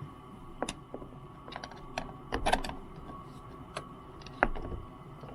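Irregular sharp clicks and metallic knocks of hand tools working at a corroded windscreen wiper arm to free it from its splines.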